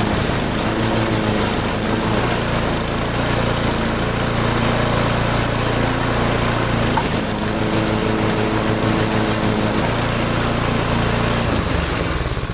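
Small gasoline engine of a snow blower running with the auger engaged, surging a little as its pitch wavers a couple of times. The engine shuts off near the end.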